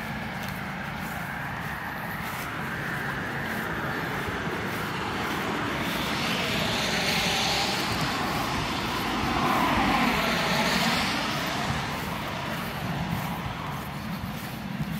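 A passing vehicle: a broad rushing noise swells, peaks with a falling pitch about ten seconds in, then fades away.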